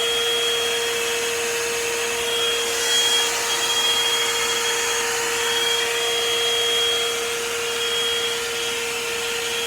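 Revlon One-Step hot-air brush (hair dryer and styler) running steadily: a constant blowing rush with a steady hum and a high whine that comes and goes in the middle.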